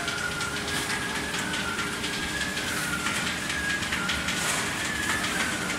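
Polycarbonate corrugated sheet extrusion line running steadily: a mechanical hum with a whine that slowly wavers in pitch and many light ticks.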